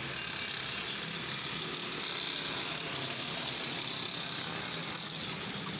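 Sandpaper rubbed by hand over a plastic headlight lens to cut back its oxidised, clouded surface, heard as a steady hiss.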